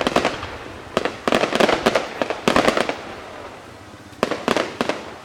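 Aerial fireworks bursting in quick volleys: clusters of sharp bangs and crackles come in four groups, with a fading echoing rumble between them.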